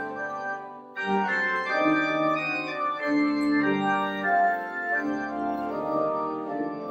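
Organ playing slow sustained chords that change every second or so. The sound dips briefly, and a fuller chord comes in about a second in.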